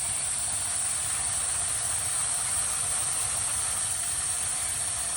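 Shower water spraying steadily, an even hiss.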